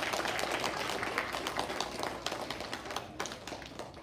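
A roomful of children clapping, the applause thinning out and stopping about three seconds in.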